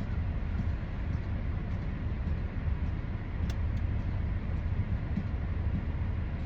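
Steady low rumble of a car's idling engine heard inside the cabin, with a small click about three and a half seconds in.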